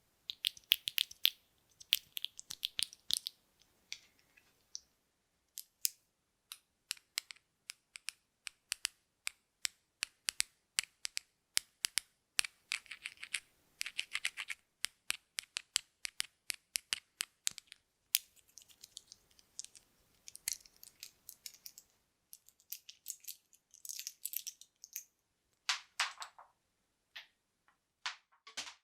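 Sewing buttons clicking and clattering against each other and a surface. The sharp clicks come in quick runs and bursts, with short pauses between.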